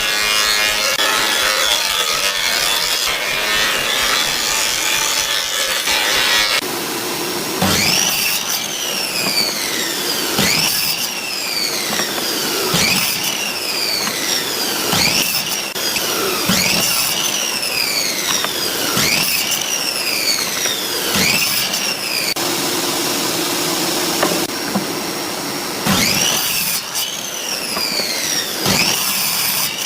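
Wood being sawn by hand in steady strokes about once a second, the blade ringing with a pitch that slides on each stroke. A rough scraping comes first, and the strokes pause for a few seconds past the middle before starting again.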